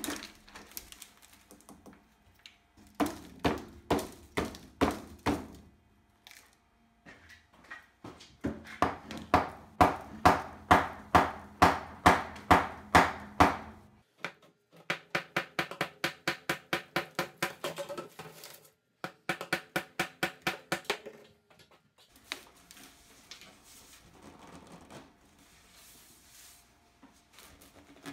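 Ball-peen hammer striking the wooden form set inside a hardened homemade cement forge body, knocking the wood out. The blows come steadily, about two a second, in several runs; the later run has a ringing tone.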